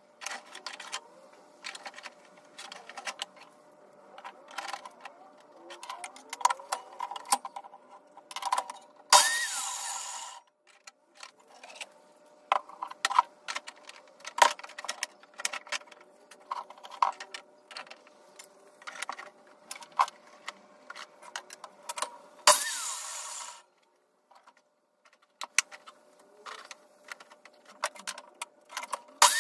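Workshop handling sounds: many small clicks, taps and metallic clinks of tools and hardware being picked up and set down. Twice a power tool runs briefly, about a second each time, near the middle and again about three-quarters through, each run opening with a short rising whine.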